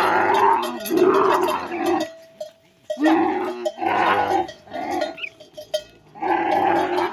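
Dromedary camels making a series of long, loud calls while mating, each lasting from half a second to two seconds, with short gaps between them.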